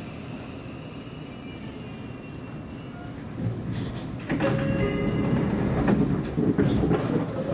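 Seibu Railway electric commuter train running, heard from inside the car as a steady rumble of wheels and running gear. About four seconds in it grows louder, and a whine of several steady tones joins the rumble.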